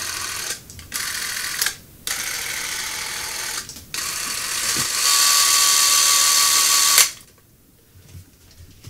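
An 8mm movie camera's clockwork mechanism whirring as it runs, in several short runs with brief stops between them. The last and longest run is louder, with a steady thin whine, and cuts off sharply about seven seconds in.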